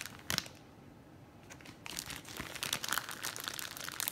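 Clear plastic packaging around a wax melt crinkling as it is pulled open by hand. There is one sharp crackle just after the start, then dense crinkling from about halfway on.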